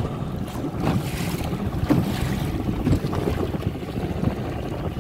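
Wind buffeting the microphone and water splashing against the hull of a small skiff under way, with a few sharp slaps about a second apart.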